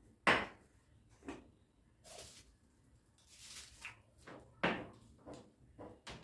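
Glass kitchen jars and their lids being handled and set down on a countertop: a series of separate knocks and clinks, the loudest just after the start, with a brief rustle in the middle.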